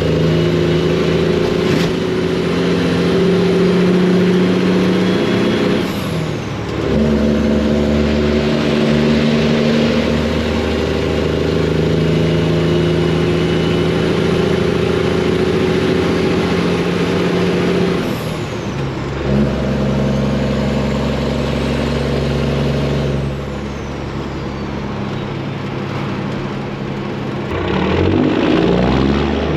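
Semi truck's Detroit diesel engine running steadily at road speed, with a loud, even engine note that changes pitch a few times.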